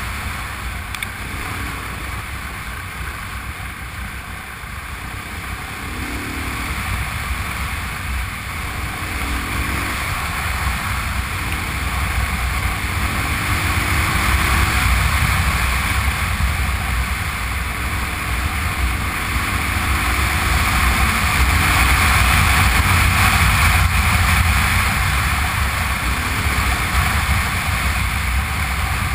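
A Honda Transalp V-twin motorcycle being ridden on a gravel track, heard through a bike-mounted GoPro. A steady rush of wind on the microphone sits over the low engine rumble, growing louder around the middle and again later on.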